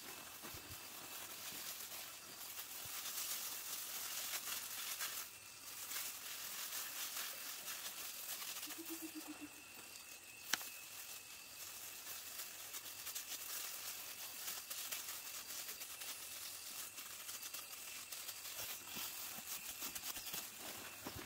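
Crinkling of a plastic bag and plastic gloves as hands scoop and shape food, with one sharp click about halfway through.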